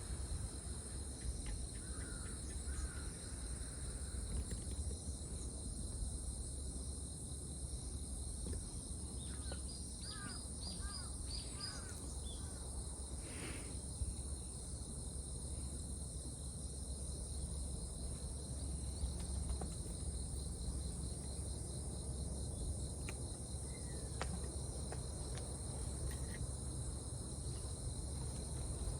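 Outdoor ambience: steady high insect trilling over a low rumble, with a few short bird calls, including a run of quick calls about ten seconds in.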